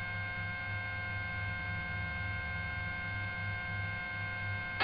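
Steady electrical hum with several thin whining tones above it, on a police helicopter's radio and intercom audio feed between transmissions. A low throb swells and fades about twice a second underneath.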